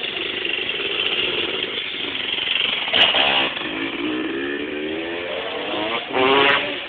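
Motocross bike engines revving hard, their pitch climbing repeatedly as the riders accelerate toward the jump ramp, with a louder rev near the end.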